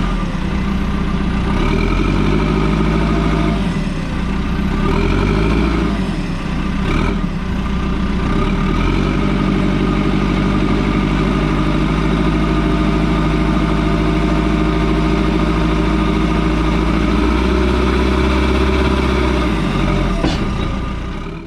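Excavator's diesel engine running, its pitch shifting a few times during the first several seconds and then holding steady. Two sharp knocks stand out, one about a third of the way in and one near the end.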